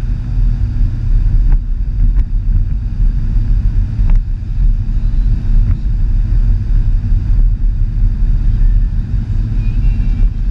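A car driving along at speed: a steady low rumble of engine and tyre noise heard inside the cabin, with a few faint clicks.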